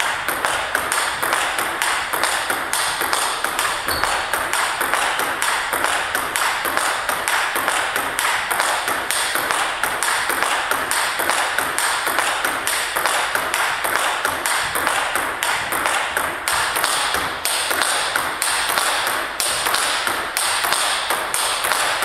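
Table tennis ball clicking in quick, regular succession off the bats and the table in a continuous rally, one bat faced with Tibhar Hybrid MK Pro rubber.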